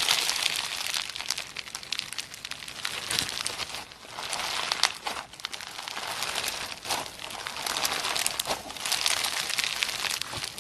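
Slime being squeezed and worked by hand, with dense crackling and popping that dips briefly a few times.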